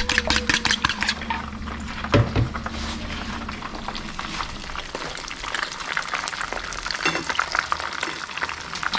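Food frying in hot butter and grease in a pan, a steady sizzle with many fine crackles, and a low thump about two seconds in.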